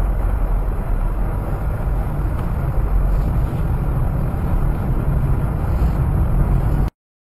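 Steady road and engine rumble inside a moving car's cabin, picked up by a dashcam microphone. It cuts off suddenly near the end.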